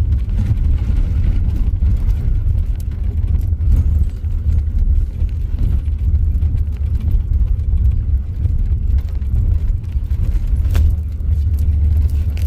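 Van engine and tyre rumble from inside the cab while driving slowly on an unpaved road: a steady, heavy low rumble, with a couple of sharp clicks near the end.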